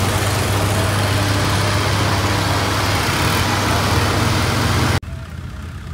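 Antique steel-wheeled tractor engine running steadily and loudly, with a deep low hum. It cuts off abruptly about five seconds in, giving way to much quieter outdoor sound.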